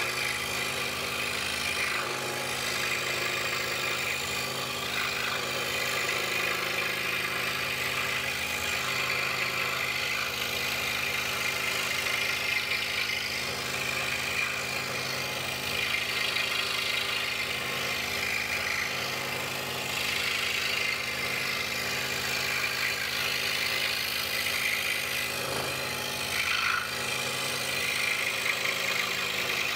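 DeWalt scroll saw running steadily, its blade cutting through a wooden puzzle blank as it is fed along curved lines; a steady motor hum under a rasping cutting noise that swells slightly as the feed changes.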